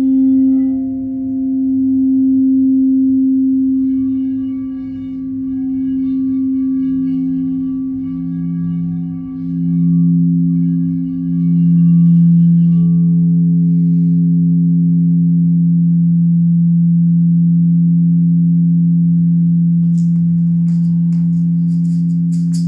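Layered sustained ringing tones, like struck metal bowls or bells. A lower tone swells in about five seconds in and wavers in slow pulses before settling. Near the end a soft high rattle, like a shaker, starts up.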